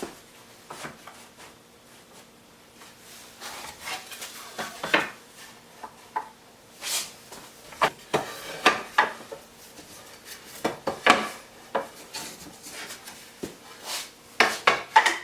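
Wooden planks being handled and set into a wooden panel clamp: irregular knocks and scrapes of wood against wood.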